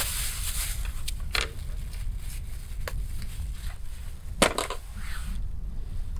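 Thin plastic bag rustling as it is handled, then a few sharp clicks and knocks of a kitchen knife on a wooden cutting board, the loudest a little past the middle. Near the end the knife starts sawing into the crust of a loaf with a short rasp, over a steady low rumble.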